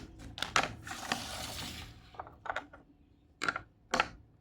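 Puzzle pieces being handled: a scraping rub with several clicks for about two seconds, then a few light clicks and two sharper clacks about half a second apart near the end.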